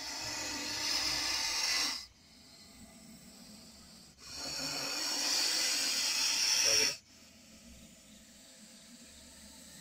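Russell's viper hissing loudly, like a pressure-cooker whistle: two long hisses, one ending about two seconds in and the next from about four to seven seconds in, each cutting off sharply. It is a defensive warning to keep a threat away.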